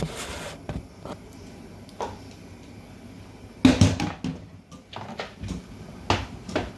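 Knocks and clatters of kitchen items being handled, a few separate ones and a louder burst of clattering a little past halfway.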